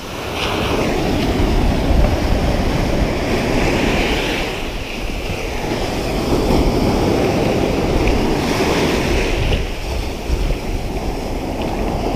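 Surf washing up and draining back over a sandy beach, swelling and easing every few seconds as the waves come in, with wind buffeting the microphone.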